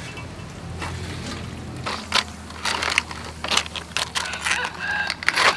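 Raw blue crab shells clicking and scraping against each other as hands move them about, a run of sharp, irregular clacks starting about two seconds in.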